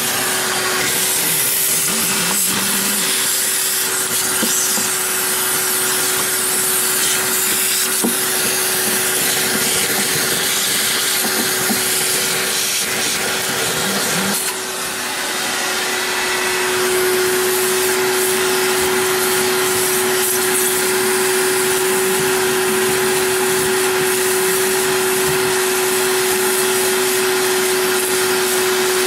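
Vacuum motor running steadily with a constant whine, likely pulling dirt off a clogged evaporator coil. About halfway through it dips briefly, then runs on slightly louder with a stronger whine.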